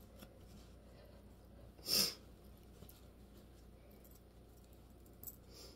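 Quiet room tone, broken about two seconds in by one short noisy rush and by a faint tick near the end.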